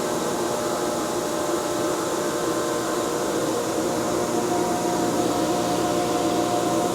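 Quincy 235 50 hp air-cooled rotary screw air compressor running: a steady mechanical hum with several held tones over a hiss of air.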